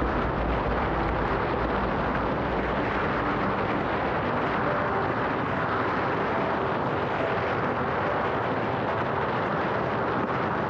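Steady rush of wind on the microphone and water hissing and slapping under a windsurf board planing at about 30 to 40 km/h.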